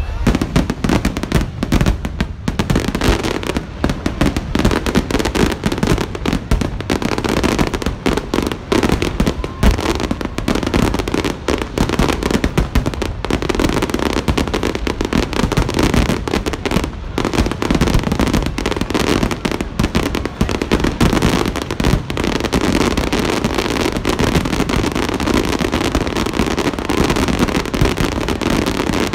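Fireworks finale barrage: a rapid, continuous run of aerial shell bursts and crackling bangs, densely packed with hardly a gap between them.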